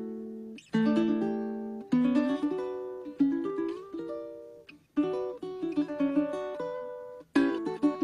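Venezuelan cuatro, a small four-string guitar, played solo. Strummed chords ring out and fade one after another, and a quick run of strums starts near the end.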